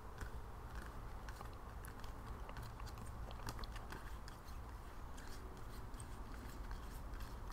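Hoyle clear waterproof plastic playing cards being flipped through by hand: faint, irregular light clicks and flicks as the plastic cards slide off one another.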